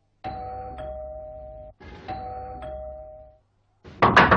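Two-tone ding-dong doorbell rung twice, each ring a higher note falling to a lower one. A few loud thumps follow near the end.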